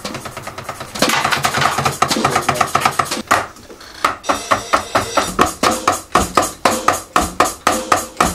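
Drum kit played in a steady beat, with evenly spaced hits about three a second over the second half after a brief lull.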